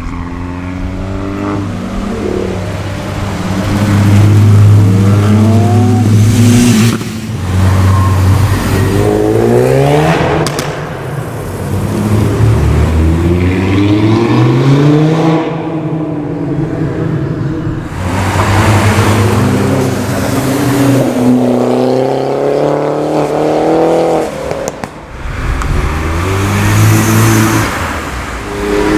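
Car engines accelerating hard, one after another, each climbing in pitch and dropping back at the gear changes.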